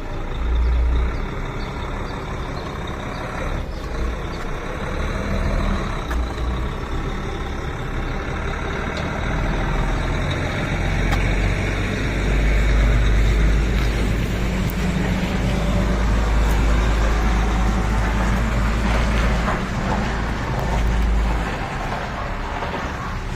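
A heavy truck-type engine running with a steady deep rumble. It gets louder about halfway through and eases off again near the end.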